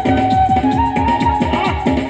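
Stage music from a jatra-style 'opera' show: a quick, steady drumbeat of about four to five strokes a second, each stroke dropping in pitch, under a held melody line.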